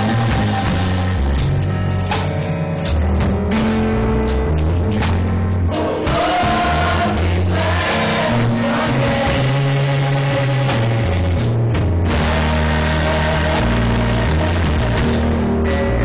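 Youth gospel choir singing together over band accompaniment, with a steady beat and a strong bass line.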